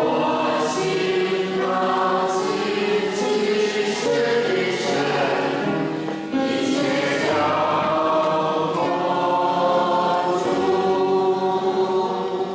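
A choir singing a hymn in long held notes, with a short break between phrases about six seconds in.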